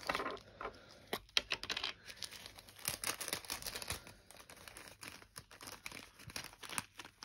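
Small plastic bags crinkling and rustling as they are handled and opened, with irregular sharp clicks and crackles throughout.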